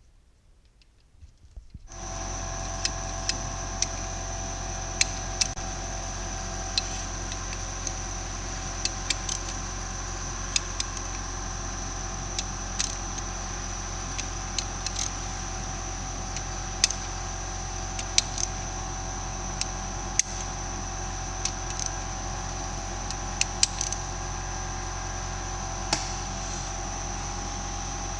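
A steady mechanical hum with several fixed tones starts about two seconds in, with scattered light clicks and ticks over it.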